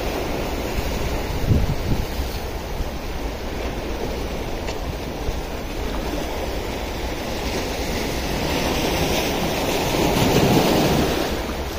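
Sea waves washing and breaking over shoreline rocks, with wind buffeting the microphone. The surf swells louder about ten seconds in.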